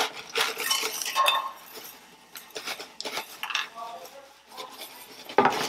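Granulated sugar shaken out of a plastic jug into a nonstick frying pan, hissing and rattling in several spells as lumps of hardened sugar knock loose and land, with a loud clatter near the end.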